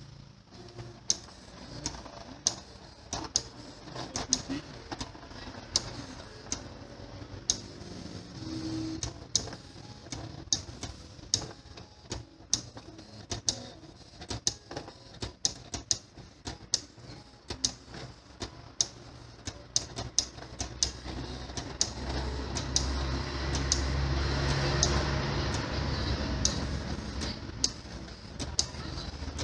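A printer-plotter mechanism running, giving a string of sharp, irregular clicks over a low motor hum that grows louder about two-thirds of the way in.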